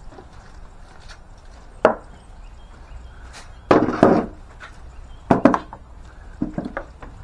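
A few sharp knocks and clatters of hard objects, irregularly spaced: one about two seconds in, a longer clatter around four seconds, a quick double knock, and lighter taps near the end.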